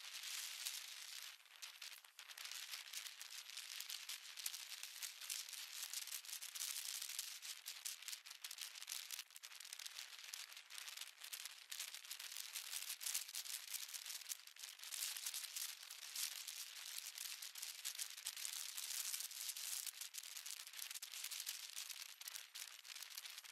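Wind rushing over the microphone of a camera riding on a fast-moving electric unicycle: a faint, steady, crackly hiss with no low end.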